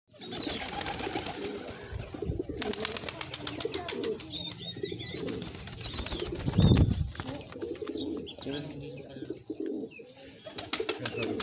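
Domestic pigeons cooing, with thin higher-pitched bird chirps over the top and a dull thump about halfway through.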